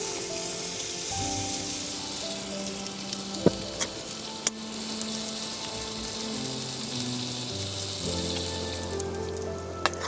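Food sizzling over a campfire: a steady frying hiss with a few sharp clicks, which dies away near the end. Quiet instrumental background music with held notes plays along.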